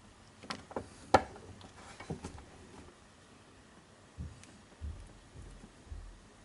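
Small sharp clicks and taps of a screwdriver working the screw of a plastic screw-terminal DC barrel-jack adapter, the loudest about a second in. Later come soft, dull handling bumps as the wire is pushed into the terminal by hand.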